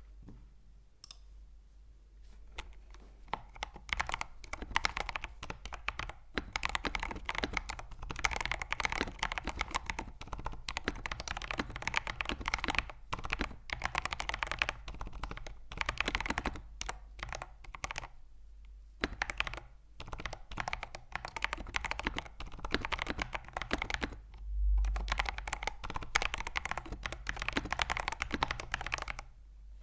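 Fast, continuous typing on a 65% custom mechanical keyboard with lubed Outemu Panda tactile switches and PBT keycaps, with a few brief pauses. A single low thump sounds about three-quarters of the way through.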